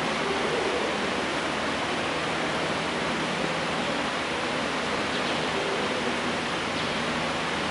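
Steady, even rushing hiss of background noise with no distinct events.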